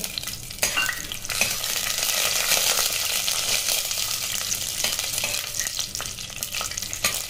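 Peanuts, cumin seeds and a bay leaf sizzling in hot oil in a pressure cooker, the tempering (phodni) for masale bhat, stirred with a steel ladle that clicks against the pan. The sizzle swells under a second in and stays strong.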